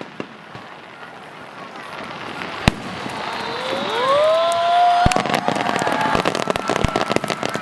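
Fireworks finale: shells crackling and popping densely, with a sharp bang about a third of the way in and another past the middle. Spectators' voices rise in a long admiring 'ooh' through the middle.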